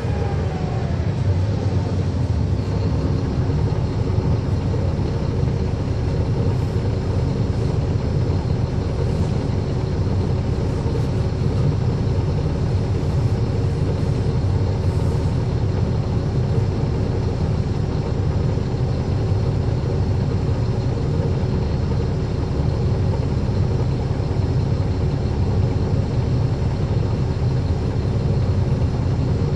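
Inside a 2009 NABI 40-SFW transit bus: its Caterpillar C13 diesel engine running steadily, with the engine cooling fans on, as a constant low rumble with a faint steady whine above it.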